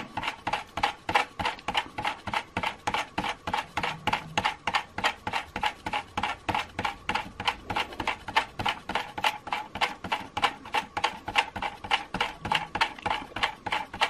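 Tyco US1 log loading bulldozer's small electric motor and plastic gear train running, clicking evenly about four or five times a second as the mechanism creeps slowly through its cycle.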